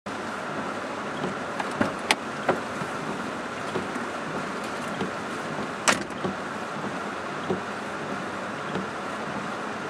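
Steady rush of wind-driven rain from a thunderstorm, with scattered sharp taps of raindrops striking; the loudest taps come about two seconds and six seconds in.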